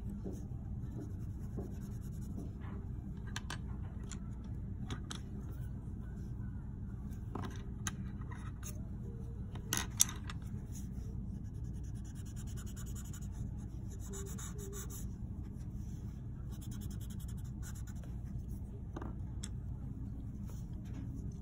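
Colored pencil scratching on paper in bursts of quick strokes, with a few light clicks and a sharper tap about ten seconds in, over a steady low hum.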